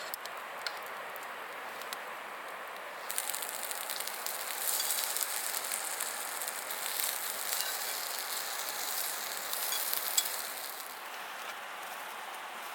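Food sizzling and crackling in a hot pan. The crackle rises about three seconds in and eases off near the end.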